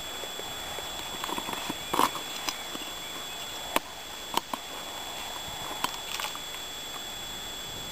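A hand trowel and a metal bucket knocking and clinking as compost is scooped out of the bucket: a handful of sharp, scattered knocks with soft scraping between them.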